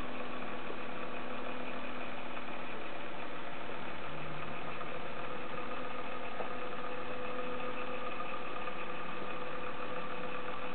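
Steady hum and whine of a small electric motor running at an even speed, with several held tones.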